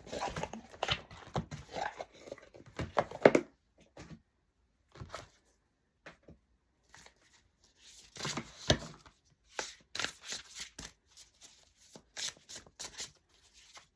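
A deck of oracle cards being handled and shuffled: irregular rustling, flicking and tapping of card stock, with a pause in the middle.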